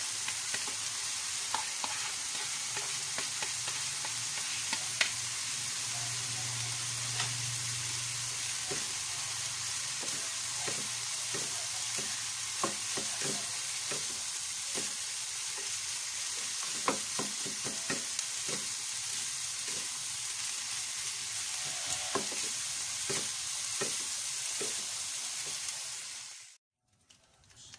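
Fried tofu cubes and chopped onion sizzling in a frying pan while being stirred, with scattered taps and scrapes of spatulas against the pan. The sizzle cuts off suddenly near the end.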